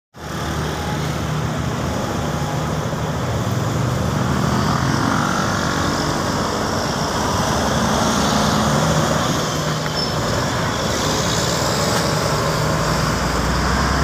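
Heavy road traffic passing close by: truck and car engines running with tyre noise, a steady low engine drone throughout. The lowest rumble swells near the end as a container truck passes.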